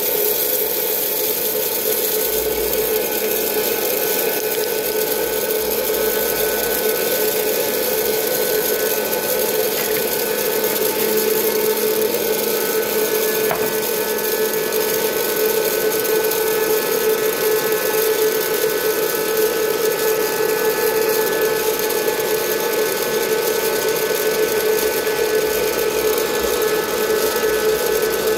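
Presto Poplite hot air popcorn popper running: the steady whir of its fan motor blowing hot air through the popping chamber, with a constant hum, growing slightly louder in the second half.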